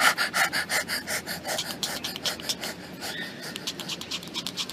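Quick, rhythmic open-mouthed panting in the manner of a dog, about six breaths a second, growing fainter after about three seconds.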